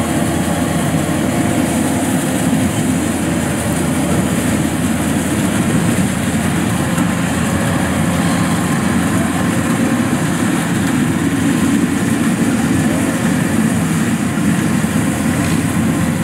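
Kubota DC115plus combine harvester running under load as it cuts and threshes lodged rice: a steady, unbroken engine and threshing drone.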